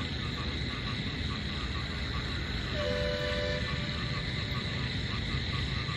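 Steady street traffic rumble, with a distant vehicle horn sounding once for under a second, about three seconds in. A faint, regular chirping repeats in the background.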